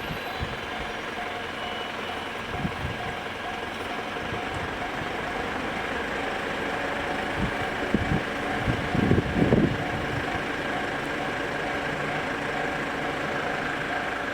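Japanese railway level-crossing alarm sounding the JR standard electronic warning bell: a steady, evenly repeating ding. A run of low thumps about eight to ten seconds in is the loudest part.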